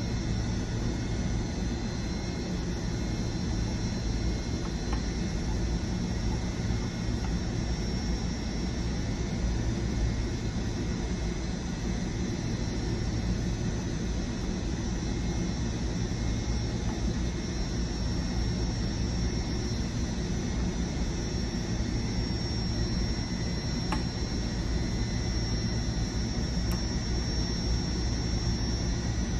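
Steady machinery hum: a constant low rumble with thin, high whining tones running through it.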